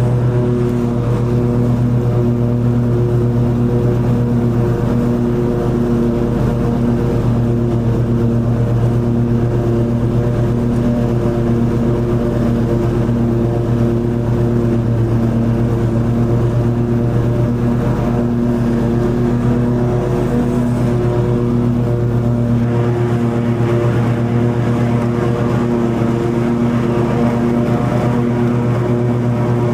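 Toro TimeCutter zero-turn mower's engine running steadily at full throttle with the cutting blades engaged, mowing long grass. The tone shifts slightly about two-thirds of the way through, with less low rumble and a little more hiss.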